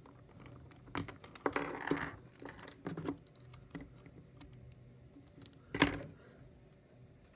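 Light hard-plastic clicks and rustles from handling a transforming robot toy in its ambulance vehicle mode, with one louder knock about six seconds in.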